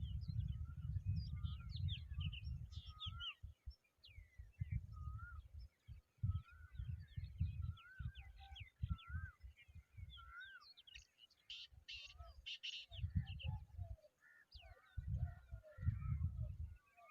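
Many small birds chirping and calling, in short rising and falling notes, with a livelier run of sharp notes just after the middle. A low rumble comes and goes underneath.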